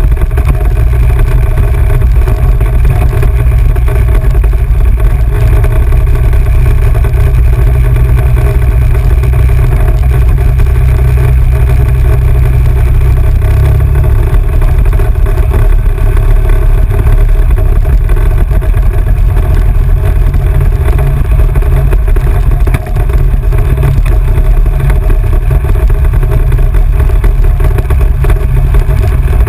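Off-road vehicle engine running steadily while riding along a dirt road, with a heavy low rumble throughout.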